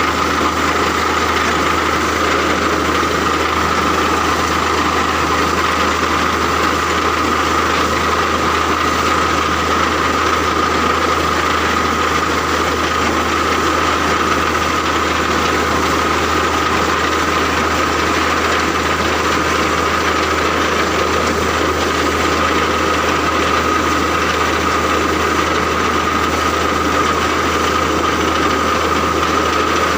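An engine running steadily at a constant speed, with a steady whine above it and no change through the whole stretch.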